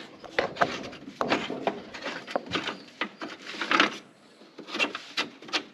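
Irregular knocks, clicks and short scrapes of hand work on the combine, the sound of the air filter housing being opened and the filter handled so it can be blown out.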